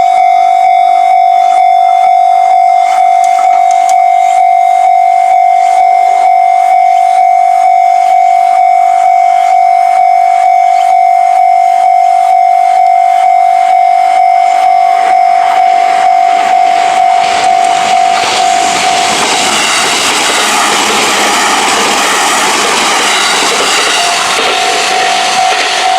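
Level-crossing warning bell ringing steadily, about two strokes a second. About two-thirds through, an Izuhakone Railway Sundo Line train passes over the crossing and its running noise drowns the bell, which is heard again near the end.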